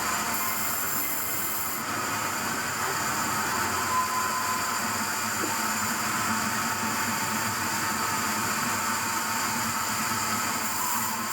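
Sawmill machinery running steadily, a continuous even mechanical noise with a slight knock about four seconds in.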